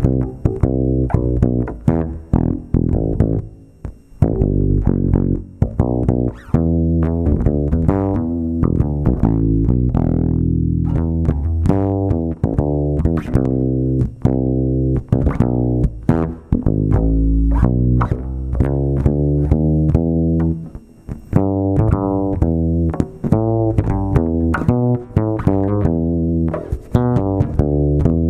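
Bass guitar played as a run of plucked notes, with one note sliding down in pitch about ten seconds in.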